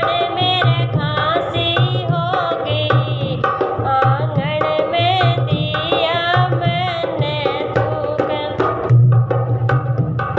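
Haryanvi folk song: a hand drum plays a steady beat under a wavering melody line.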